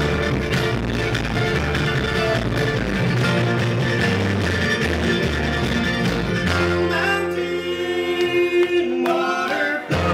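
Live bluegrass string band playing: acoustic guitar, fiddle, mandolin and upright bass. About six and a half seconds in, the bass and rhythm drop out, leaving a few long held notes, and the full band comes back in at the very end.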